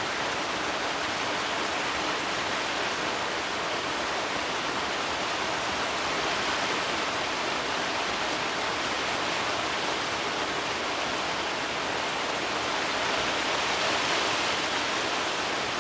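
Campfire burning: a steady hissing rush of flames, swelling slightly near the end.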